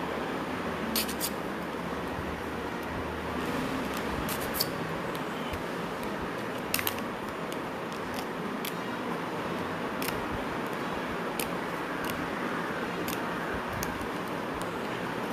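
Small scissors snipping through thin chart card, short sharp clicks at irregular intervals as a finger hole is cut out of a puppet piece, over a steady background hiss.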